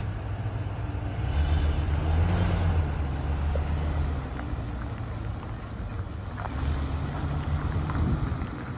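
Ford F-650 medium-duty truck's engine running as the truck drives off slowly, with the engine note swelling about a second in and again near the end.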